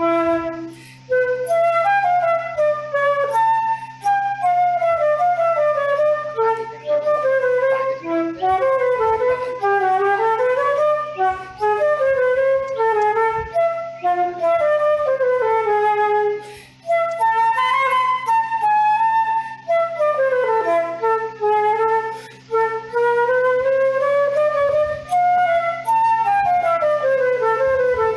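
Background music: a flute playing a flowing melody over a steady low drone.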